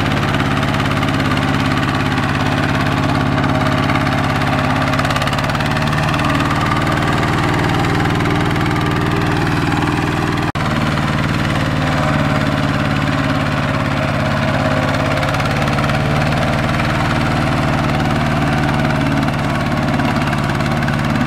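Two-wheel power tiller's single-cylinder diesel engine running steadily under load as it hauls a loaded trailer through deep mud. The sound drops out for an instant about halfway through.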